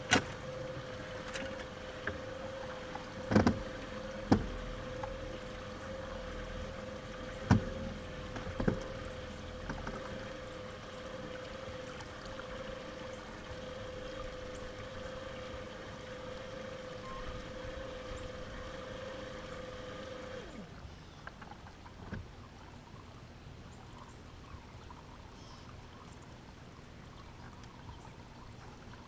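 Electric bow-mounted trolling motor running with a steady whine and cutting off about two-thirds of the way through. Five sharp knocks on the boat fall in the first nine seconds.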